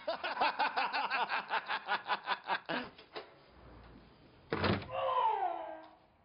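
Two men laughing loudly in quick, rhythmic bursts for about three seconds. About four and a half seconds in, a door bangs open. A drawn-out cry falling in pitch follows.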